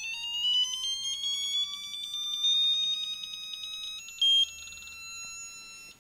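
Icon 1/2-inch digital torque wrench's beeper sounding as it is pulled up toward its 150 ft-lb setting. A rapidly pulsing beep rises steadily in pitch as torque builds; about four seconds in it becomes a steady tone with one short louder beep as the target torque is reached, then cuts off suddenly near the end.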